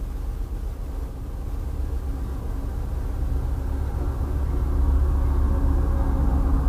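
Amtrak Downeaster's GE P42DC diesel locomotive approaching: a low engine rumble that grows steadily louder, its steady drone strengthening over the last couple of seconds.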